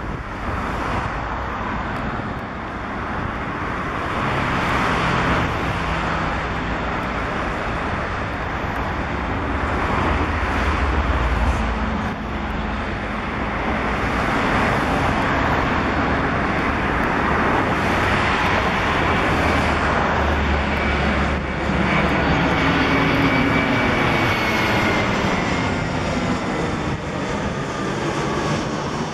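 Airbus A320-214 jet airliner on landing approach with gear down, its CFM56 turbofan engines giving a steady broad jet noise as it flies overhead. Faint whining tones fall in pitch in the second half as it passes.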